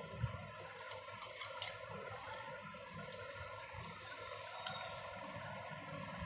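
Quiet room tone with a faint steady hum and a few light clicks and taps, several in the first two seconds and one near the five-second mark.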